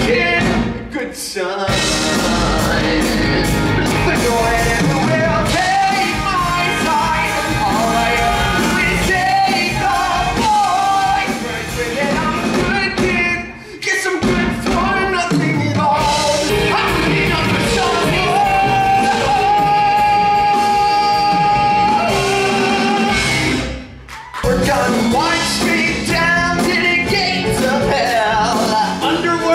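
A male lead singing a rock-style show tune over a live rock band, with two brief breaks in the music.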